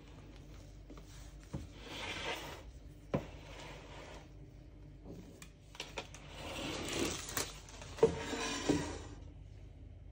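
A spatula scraping and spreading thick sponge-cake batter in a baking tin, followed by the tin being handled and shifted on its baking paper with a few knocks, the loudest about eight seconds in.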